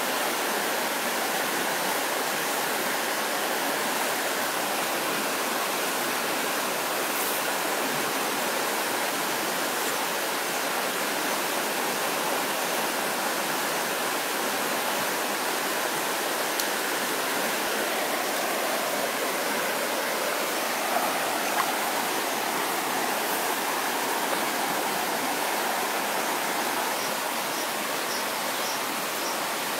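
Water rushing over the rocks of a shallow jungle stream: a steady, even rush.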